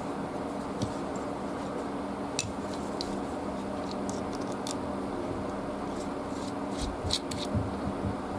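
Small metallic clicks and taps of a little Torx screwdriver working the screws of a folding knife and of the knife's parts being handled: a few single clicks, then a quicker cluster near the end.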